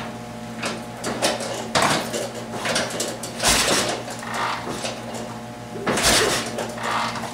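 A 750 Triumph parallel-twin engine kicked over on its kick-starter about three times, a couple of seconds apart, each kick a short burst of noise with smaller knocks between. The spark plugs are out and the throttle is held wide open to take a compression reading, and the cylinder under test has low compression, about 65 psi.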